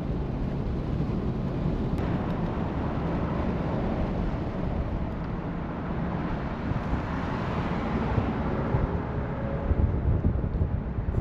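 Steady road noise of a car driving: low engine and tyre rumble with some wind.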